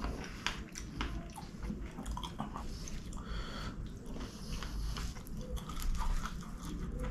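Close-miked chewing and biting of chicken kottu and devilled chicken eaten by hand, with many short, irregular mouth clicks and a few crunchy bites.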